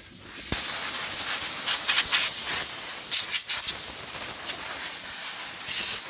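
Loud, steady hiss of gas released under pressure, starting abruptly about half a second in.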